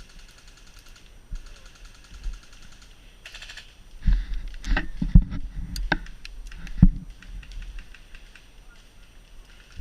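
Airsoft electric guns firing several bursts of fast, even clicking, on full auto. Between them, in the middle, come a few louder separate thumps and knocks.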